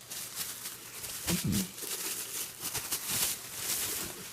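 Packaging rustling and crinkling in an irregular run of small crackles and rubs as it is handled and the mask is pulled out.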